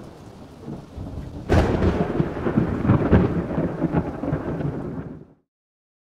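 Thunder sound effect: a sharp crack about a second and a half in, then a low rolling rumble that cuts off abruptly about five seconds in.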